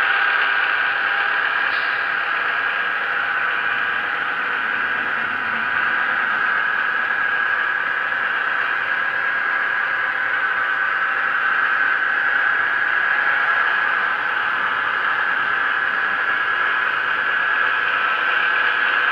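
Model Vossloh G 2000 diesel locomotive's sound decoder playing a steady diesel engine drone through its small loudspeaker, mixed with the running of the model train on its track. It gets slightly louder near the end as the locomotives come round toward the microphone.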